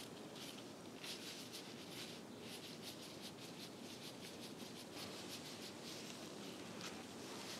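Faint crisp rustling of disposable plastic gloves handling shredded taro strands: a quick, irregular patter of small ticks and crinkles over a steady background noise.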